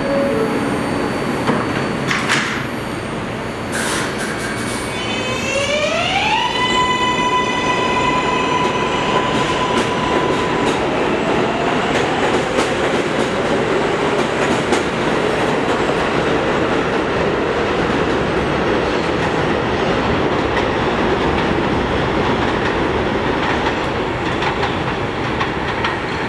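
R143 subway train departing. It opens with a short two-note door chime and two sharp knocks from the doors shutting. From about five seconds in, the traction motors' whine rises in pitch for a couple of seconds and then holds steady. Under it all runs the rumble and clatter of steel wheels on rail as the cars pull past.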